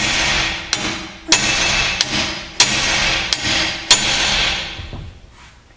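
Metal tool cutting into a seized, rusted leaf-spring U-bolt on a Ford F450. There are six sharp metal knocks about two-thirds of a second apart over a steady hiss, and the hiss dies away near the end.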